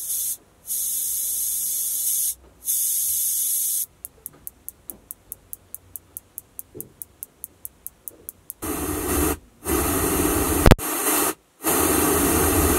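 Pioneer head unit's auto EQ and time-alignment measurement playing test signals through the car's Hertz speakers. First come bursts of high-pitched hiss from the right tweeter with short gaps, then a rapid train of clicks at about six a second. Near the end come fuller, deeper noise bursts, broken by one sharp click.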